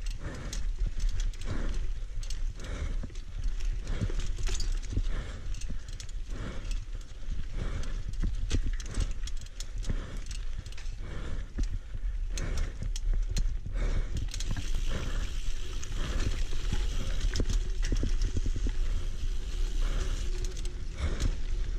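Single-speed mountain bike being ridden over a dirt singletrack trail: a constant irregular run of knocks and rattles as the bike jolts over bumps, over a steady low rumble. About two-thirds of the way through, a hiss in the upper range grows louder.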